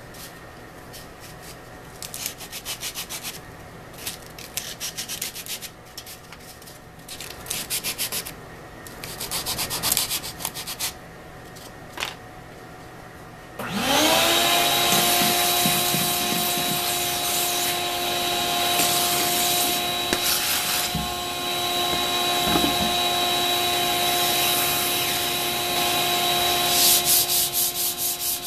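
Hand sanding of MDF with a sanding block: short back-and-forth strokes in bursts. About halfway through, a vacuum motor starts up, its whine rising quickly and then holding steady under more sanding strokes near the end.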